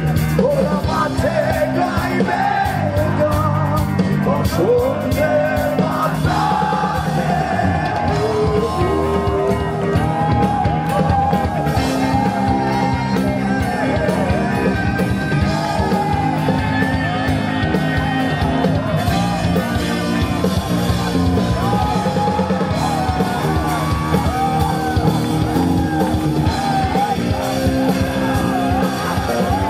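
Live rock band playing a Bengali song: a man singing over electric guitar, bass guitar and drums, amplified through the PA in a hall.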